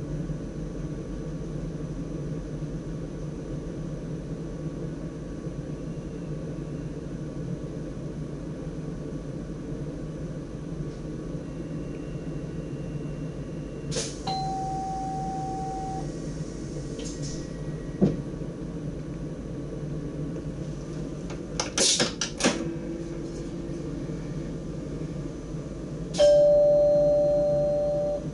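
Steady hum of a stationary electric train's equipment heard inside the driver's cab, broken by a short held beep about halfway through and a few clicks. Near the end a loud two-tone electronic chime rings out and fades over about two seconds.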